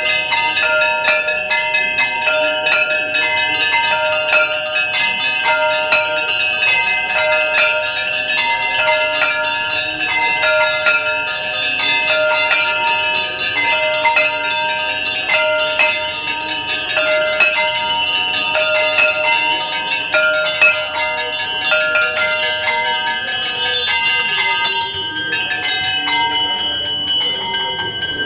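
Brass temple bells ringing rapidly and continuously in a quick repeating pattern, as rung during a Hindu aarti.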